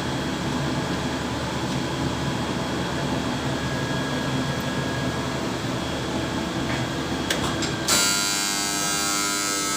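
Steady noise and hum of a running Miura EX 500 GH gas-fired steam boiler and its burner. About eight seconds in there are a few clicks, then a loud electric alarm buzzer starts and keeps sounding: the boiler's combustion-failure alarm after a misfire.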